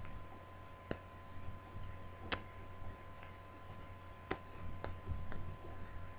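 Scattered light clicks and taps, about five in all, as a laptop motherboard is worked loose from its plastic base. Underneath runs a steady faint hum with a thin high tone.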